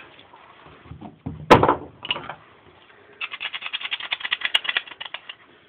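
Hands working the compressor's removed air filter: a sharp knock about a second and a half in, a few lighter knocks, then a fast run of rattling clicks lasting about two seconds.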